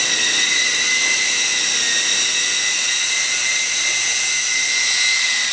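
Lama toy RC helicopter's twin 180-size electric motors and rotors running, a steady high-pitched whine.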